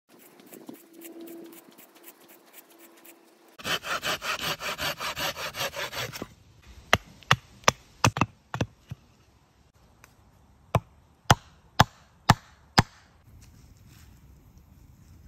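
Woodworking by hand on a green log: a hand auger grinding into a log round, then a run of fast, even scraping strokes on wood, then sharp hatchet knocks into wood in two short runs, the second five knocks about half a second apart.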